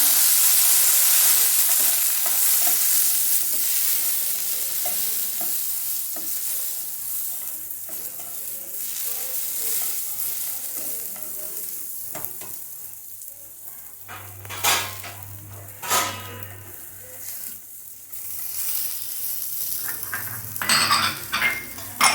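Coriander seeds, pepper, cumin and water-soaked dried red chillies sizzling in a little hot oil in a pan while being stirred. The sizzle is loud at first and dies down steadily. In the second half a spatula knocks and scrapes against the pan a few times.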